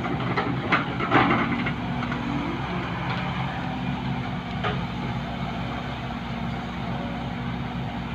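Large diesel truck engine idling steadily, with a few short knocks in the first couple of seconds and one more about halfway through.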